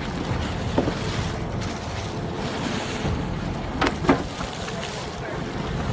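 Water splashing as a hooked mako shark thrashes alongside a boat, with a few sharp splashes, the loudest about four seconds in. Steady wind buffets the microphone over a low rumble throughout.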